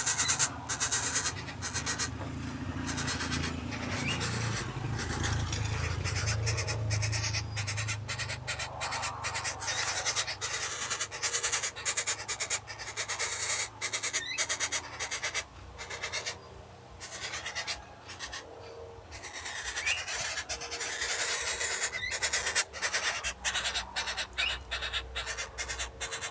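Lesser coucal calling: repeated low hoots, under a constant crackling and scratching noise.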